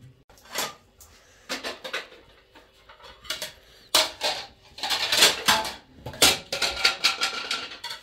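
Dishes and utensils clattering: irregular sharp knocks and clinks that come thickest from about four seconds in, with a brief metallic ring near the end.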